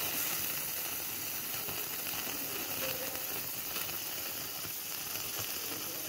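Hollowed lemon half set straight on a gas flame, its filling of lemon juice, honey, olive oil and spices bubbling and sizzling steadily as it starts to boil.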